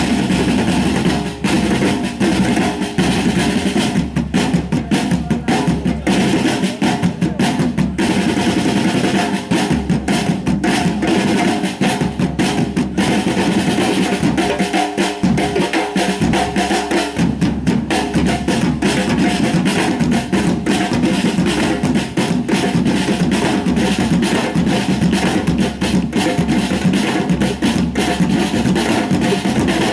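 Loud music driven by drums and percussion, with a steady beat. About halfway through, the low drums drop out for a couple of seconds, then return.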